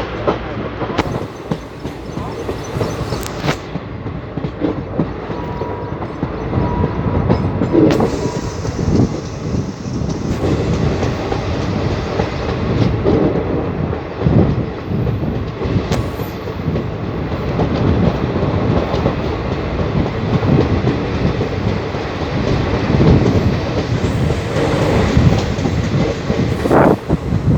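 Train running on rails: a steady loud rumble with the wheels clacking irregularly over the track.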